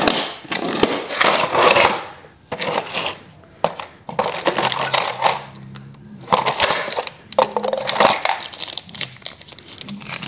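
Small metal lathe accessories, change gears and parts, clinking and rattling in a plastic toolbox as they are rummaged, with plastic bags crinkling. It comes in several bursts with quieter gaps between them.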